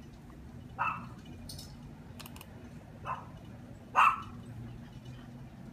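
A dog barking: three short barks, about a second in, three seconds in and four seconds in, the last one the loudest.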